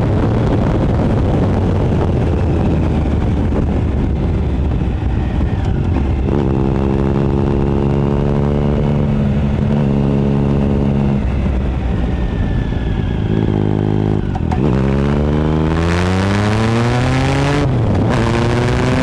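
2013 Triumph Speed Triple 1050's three-cylinder engine running through a Competition Werks GP slip-on exhaust, holding fairly steady revs for most of the time. About fourteen seconds in the revs dip and then climb as it accelerates, with a quick drop near the end that sounds like an upshift, before the revs rise again.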